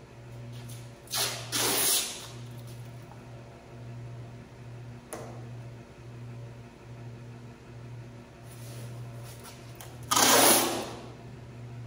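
Yellow masking tape pulled off the roll in two loud tearing pulls, one about a second in and one about ten seconds in, as it is laid along a truck bed's body line. A steady low hum runs underneath.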